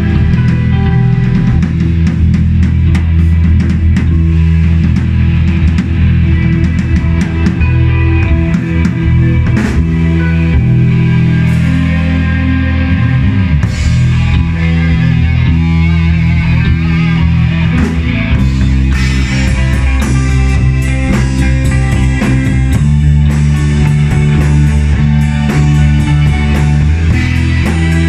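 A rock band playing together live: electric bass, electric guitars, keyboard and drum kit. The drums and cymbals hit more steadily in the last third.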